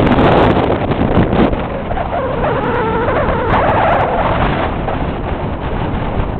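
Strong wind, about 30 mph, buffeting the microphone: a loud, steady, rumbling rush of noise that eases slightly over the seconds.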